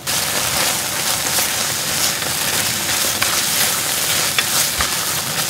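Ketchup, sliced sausage, onion and green pepper sizzling steadily in a hot frying pan, with a few scattered pops. The ketchup is being scorched on the bare pan surface before it is mixed in.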